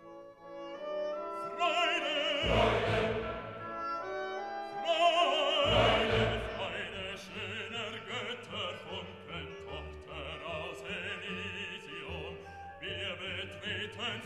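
Background music: an operatic voice singing with strong vibrato over orchestral accompaniment.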